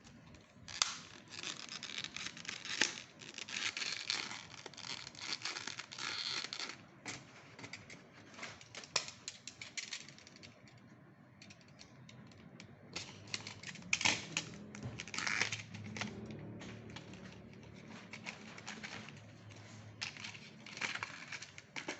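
Plastic packaging crinkling and rustling, with scattered clicks and taps, as a new laptop memory module is unpacked; busiest in the first several seconds, with further bursts later.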